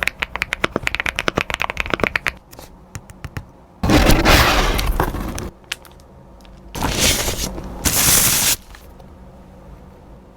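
ABKO AF108PRO mechanical keyboard being typed on fast, about ten key clicks a second, then a few single keystrokes. Three longer stretches of dense clattering noise follow.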